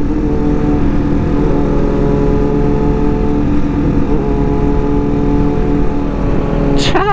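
Sport motorcycle engines running at a steady cruising speed, the engine note holding nearly level with only slight pitch changes, under heavy wind rush on the microphone.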